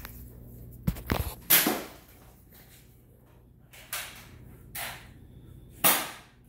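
Toy foam-dart blaster being handled and fired: a handful of sharp clicks and snaps with quiet between them. The loudest come about a second and a half in and again near the end.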